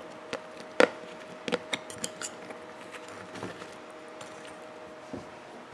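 Knife and fork clicking and scraping against a plastic takeout tray while cutting a waffle: a series of light, irregular clicks, the sharpest about a second in, over a faint steady hum.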